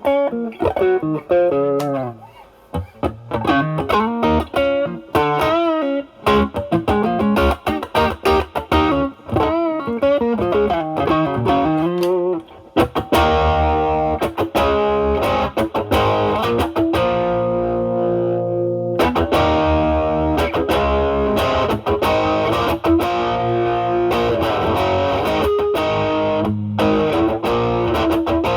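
Overdriven electric guitar: a Stratocaster with single-coil pickups through an Ibanez Tube Screamer Mini pedal into a Marshall Valvestate amp's drive channel. It plays a bluesy single-note lead with string bends, then switches about 13 seconds in to ringing, distorted chords.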